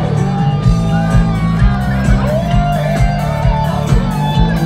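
Live band music played loud through a concert PA, with a steady drum beat, bass and guitar.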